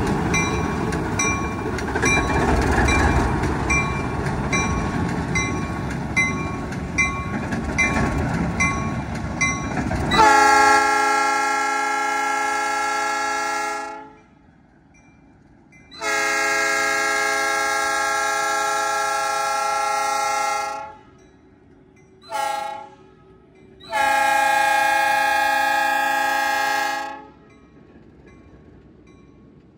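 ALCO RS-1 road switcher's turbocharged 539 diesel engine running as it passes, with its bell ringing steadily about every 0.6 s. Then its air horn sounds long, long, short, long: the standard grade-crossing signal.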